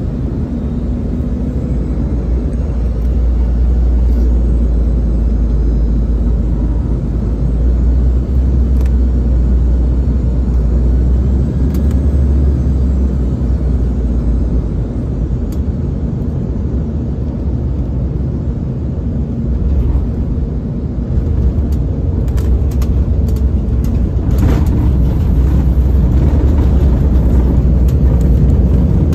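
Cabin noise inside an Embraer 190 airliner landing: a steady low rumble of its turbofan engines and airflow, and of the wheels on the runway after touchdown. Scattered rattling clicks come about three quarters of the way through, and the rumble grows louder near the end during the rollout.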